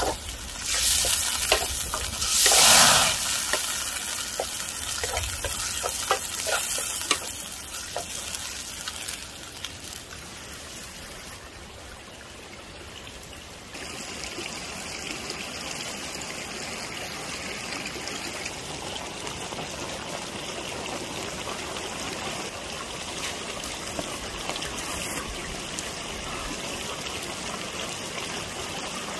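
Egg and chopped vegetables frying in a wok over a wood fire, a wooden spatula scraping and stirring, with a loud hiss of sizzling about two to three seconds in. After a cut about halfway through, a steady watery rush takes over.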